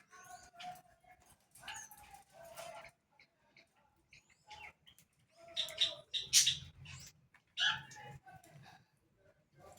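Short bird calls mixed with brief rustling and scuffling noises, loudest around the middle.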